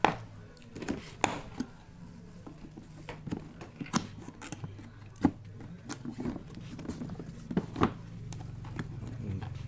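Hard plastic tool carrying case being handled, with a scattered series of sharp clicks and knocks as hands fumble at its latches to open it.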